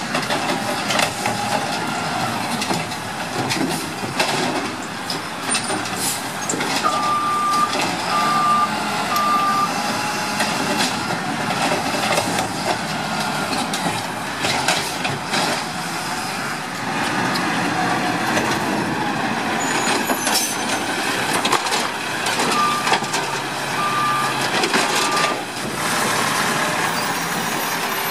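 Side-loading garbage truck's engine running steadily, with its back-up alarm giving two short sets of three beeps, one about a quarter of the way in and one near the end. A few short hisses from the truck break in.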